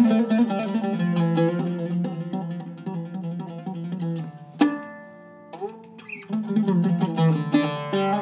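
Iraqi-style Zeryab oud with a cedar top and mahogany back, strung with Kröchner strings, played solo: a run of quick plucked notes, a single stroke a little past the middle left to ring for about a second, then quick notes again.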